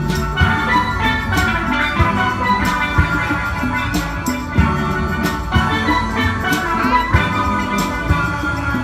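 Steel band playing: steelpans ringing out a melody in many pitched notes, over a drum beat with regular strikes.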